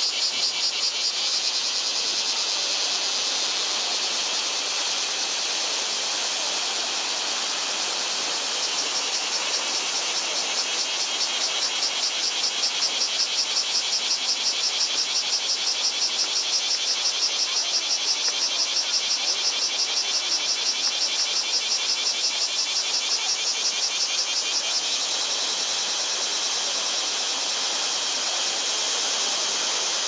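A loud chorus of cicadas singing in the trees, a dense high buzzing drone. A rapidly pulsing cicada call rises over the drone from about a third of the way in and stops a little after three-quarters of the way through.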